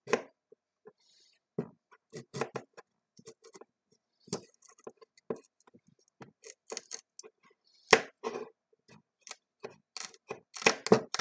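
Kitchen knife splitting a large raw carrot lengthwise on the counter: an irregular run of sharp cracks and knocks as the blade snaps through the carrot and taps the countertop, with a louder crack about eight seconds in.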